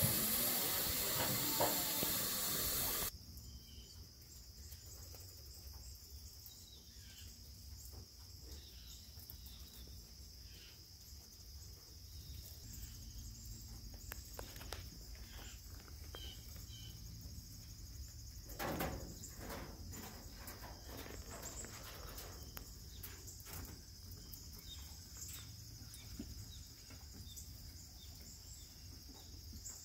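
Steam hissing from a Shay geared steam locomotive, cut off sharply about three seconds in. Then a quieter steady insect drone outdoors, with scattered faint clicks and rustles and one louder rustle a little past halfway.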